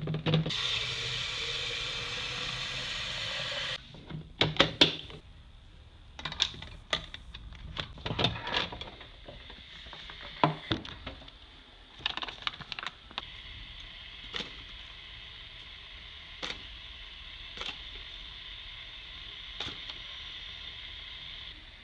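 Kitchen handling sounds while making coffee in a French press. A loud, steady whir lasts the first three or four seconds. Then come scattered clicks and knocks as the glass press and its plunger lid are handled, followed by a faint steady hiss.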